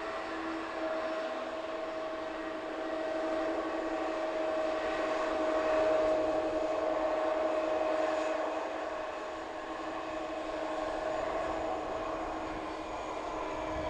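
Airliner engines running, a steady noise with a held whine in it, growing louder to a peak about six to eight seconds in and then easing off.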